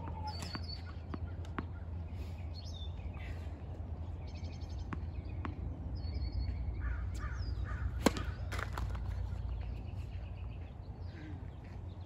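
Birds chirping and calling over a steady low rumble, with a few faint sharp knocks and one sharp tennis ball strike about eight seconds in, which is the loudest sound.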